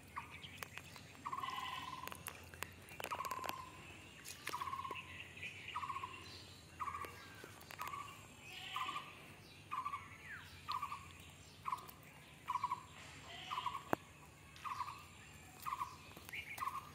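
A bird repeating a short call about once a second, the calls coming a little faster towards the end, with fainter higher chirps from other birds.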